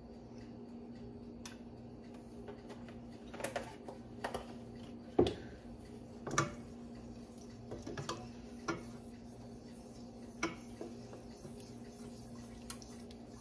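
Scattered light clinks and knocks of a utensil against a saucepan as cream is added to tomato sauce and stirred in, about eight in all, the loudest about five seconds in, over a steady low hum.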